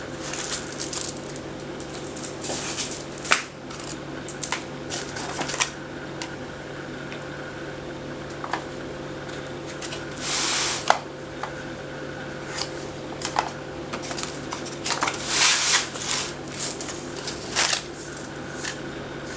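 Handling noise from a JG HK416 full-metal airsoft rifle: scattered sharp clicks and knocks with short rustling bursts, over a steady low hum.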